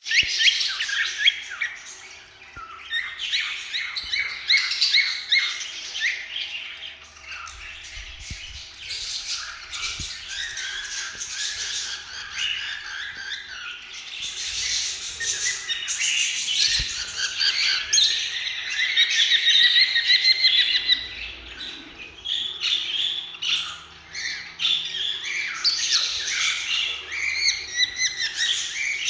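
Grey cockatiel chirping and squawking almost without pause, with a longer warbling run of whistles about two-thirds of the way through.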